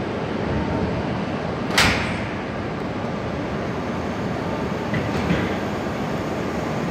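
Shinkansen automatic couplers of a Komachi and a Hayabusa trainset meeting and locking: one sharp metallic clank with a short ring about two seconds in, then two lighter clicks about three seconds later, over steady background noise.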